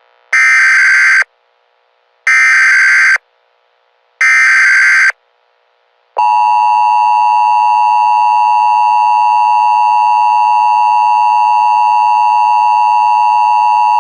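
Emergency Alert System tones: three short bursts of the SAME digital header, about two seconds apart, then the steady two-tone attention signal, held for about eight seconds and cutting off suddenly at the end.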